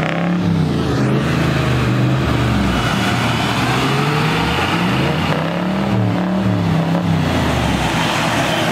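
A bogged four-wheel drive's engine revving hard, its pitch rising and falling several times as it tries to drive out of the mud.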